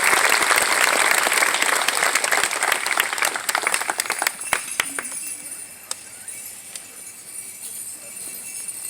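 Crowd applauding, thinning to a few scattered claps and dying out about five seconds in.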